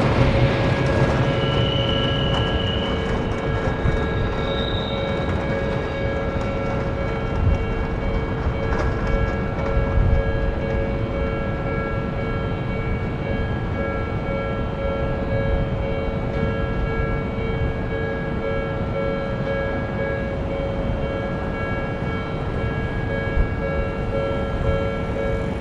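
Japanese level-crossing alarm ringing steadily with its electronic bell tones while a train runs past on the rails, the train loudest in the first couple of seconds.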